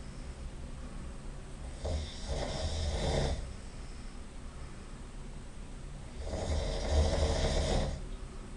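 A man snoring loudly in his sleep: two drawn-out snores, each lasting about one and a half seconds, about four seconds apart.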